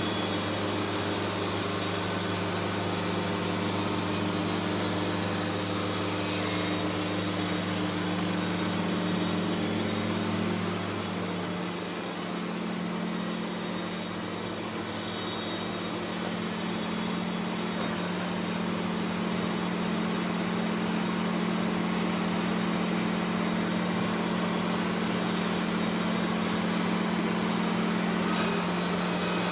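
Engine-driven portable band sawmill running steadily through a cut. Its engine hum changes about twelve seconds in, when the lowest note drops away and the sound eases slightly before settling again.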